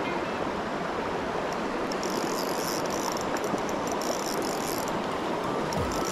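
Steady rushing of a shallow river. From about two seconds in, a small spinning reel is wound, making a fine, high, ticking whirr that stops briefly near the end and then starts again.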